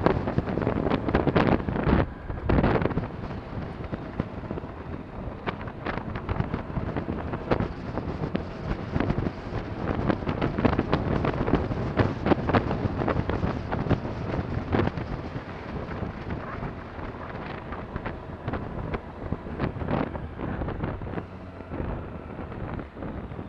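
Wind buffeting a helmet-mounted camera microphone in rapid gusts on a moving motorcycle, with the Honda VFR1200's V4 engine running underneath; the buffeting eases off toward the end as the bike slows.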